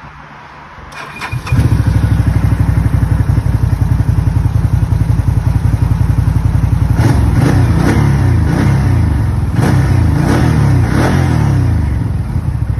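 A 2014 Can-Am Outlander MAX XT-P 1000R's Rotax V-twin cranks briefly and starts about a second and a half in, then idles with an even low pulse. From about seven seconds in it is revved repeatedly in short blips, up to about 4500 RPM.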